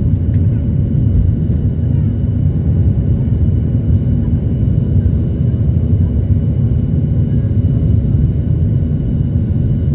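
Airliner's engines giving a steady low rumble, the level holding even throughout.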